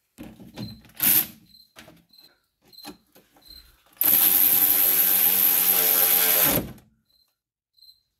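A few hand-ratchet clicks and metal clinks of tools on bolts, then about four seconds in a cordless electric ratchet runs for about two and a half seconds, spinning a bolt; its motor whine drops in pitch as it stops.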